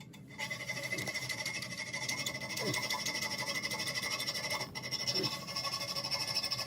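Small saw cutter cutting through a toilet's closet bolt to trim it down above the nut, a steady rasping that starts about half a second in.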